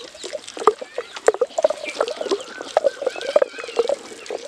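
Wet masala paste being ground by hand in a stone grinder (aattukal): the stone pestle squelches and scrapes the sticky paste against the stone bowl in quick, irregular strokes. The paste is nearly ground smooth. Birds chirp faintly behind it.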